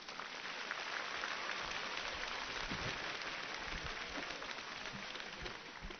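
Arena crowd applauding. It swells over the first second, holds steady, and dies away near the end.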